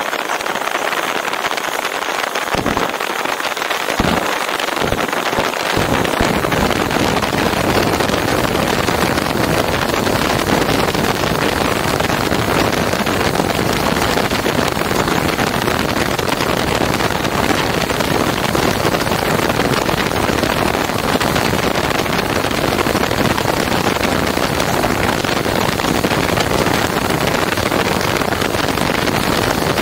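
A steady, loud rushing noise with no distinct tones. A few low thumps come in the first six seconds, after which a low rumble joins in and stays.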